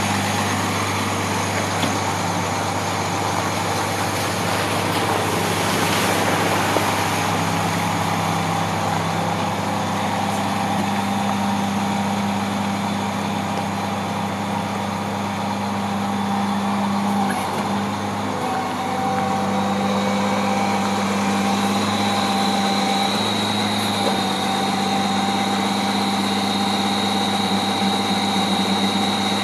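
International 4400 bucket truck's diesel engine running steadily while its hydraulics work the aerial boom. A thin, steady high whine comes in about two-thirds of the way through.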